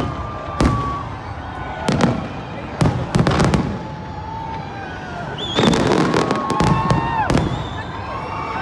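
Fireworks display: sharp bangs of shells bursting at irregular intervals, with a quick run of bangs about six seconds in. Thin whistling tones glide between the bursts.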